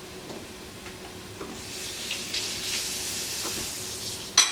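Minced garlic sizzling in butter with onions and mushrooms in a pot, the sizzle swelling about a second and a half in. Near the end comes a sudden loud clatter of metal against the pot.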